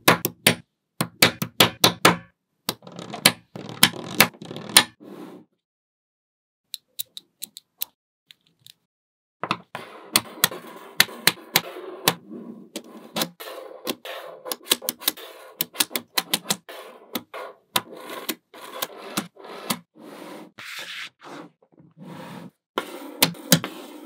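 Small magnetic balls clicking and snapping together as a slab of them is built up and pressed into place: quick runs of sharp clicks with a light rattle between them. A pause of a few seconds comes about a quarter of the way in.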